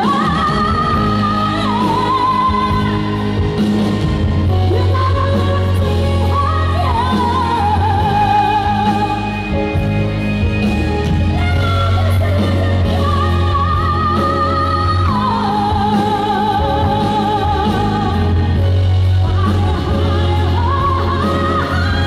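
A woman singing live through a microphone over loud amplified backing music, holding long notes with vibrato, in a large hall.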